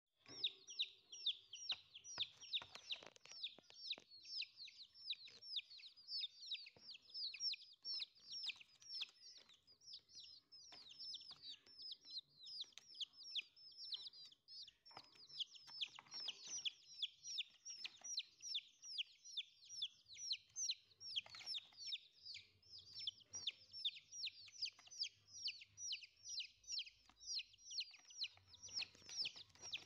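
Domestic chicken chicks peeping without pause: a rapid run of high, falling cheeps, several a second, with scattered light taps.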